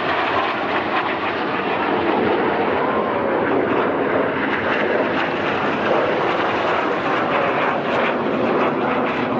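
Steady jet noise from Canadair CT-114 Tutor jets, each with a single turbojet, flying past; it swells over the first second or two and then holds loud.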